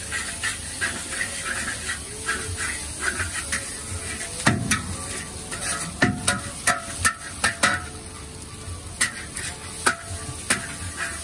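Metal ladle scraping and clanking against a large wok while chopped chilli stir-fries in hot oil over a steady sizzle. A quick run of sharp clanks comes in the middle, with more near the end.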